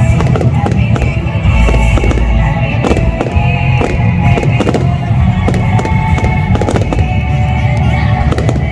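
Fireworks going off, many bangs in quick succession with deep booms beneath, while music plays.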